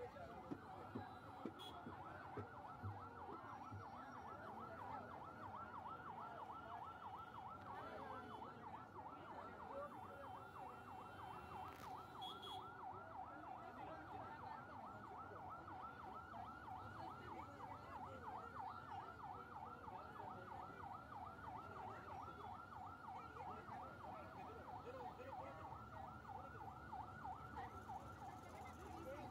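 Electronic siren sounding in a fast, evenly repeating yelp, several rising sweeps a second, over the low rumble of traffic, heard from inside a car.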